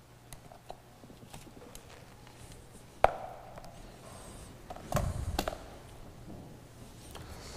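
Handling noise of a book and papers being moved on a wooden ambo close to its microphone: scattered light taps, a sharp click about three seconds in, then a cluster of knocks with a low thud around five seconds.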